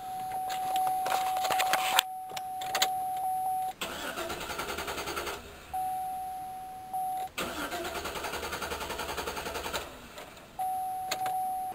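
Chevrolet Avalanche's 5.3-litre Vortec V8 being cranked over by the starter in repeated bursts, about five turns a second, without firing: the fuel pump relay is pulled, so the cranking bleeds the pressure out of the fuel lines. A steady high tone comes and goes over and between the cranking.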